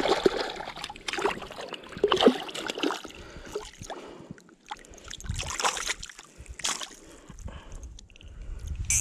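Lake water splashing and sloshing in irregular bursts, with a few short knocks.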